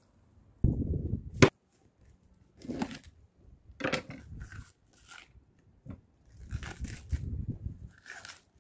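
Raw green cabbage being broken apart by hand, its crisp leaves crunching and snapping as they are pulled off the head, several separate crunches. A louder bump about a second in ends in a sharp click.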